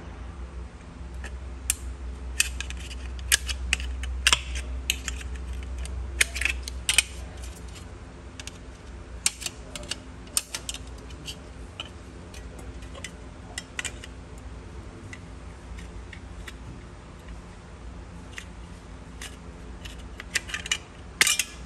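Aviation tin snips cutting angled notches into thin aluminium lighting track. The blades bite in a series of sharp, irregular snips and clicks as the metal is worked through cut by cut. A low hum runs under the first few seconds.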